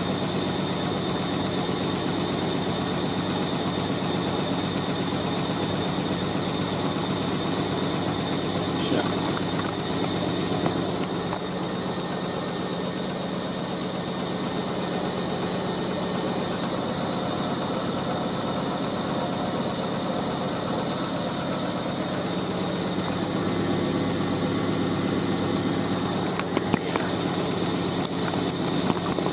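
Hoover A3060 Electronic 1100 washing machine spinning an off-balance load of wet bedding: a steady motor and drum hum with a fast low rattle as the machine shakes and tries to walk, and a few small knocks near the end.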